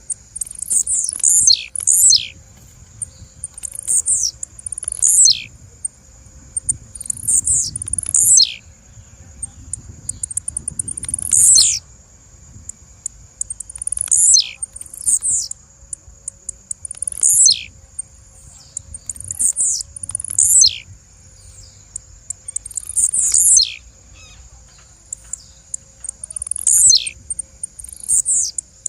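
Blue-black grassquit (tiziu) calling: short, high, sharply downward-sweeping notes, sometimes in quick pairs, repeated every one to three seconds.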